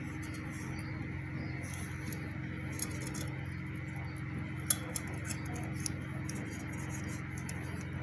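A few light metallic clicks and clinks, the sharpest a little past halfway, as carbon brushes are fitted into the brush holder of a blender motor inside its metal base, over a steady low hum.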